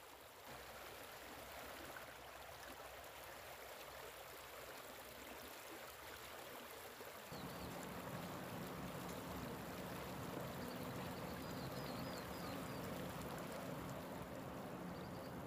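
Faint, steady rushing of a shallow stream. About seven seconds in the background becomes fuller and lower, and a few faint high chirps come in near the end.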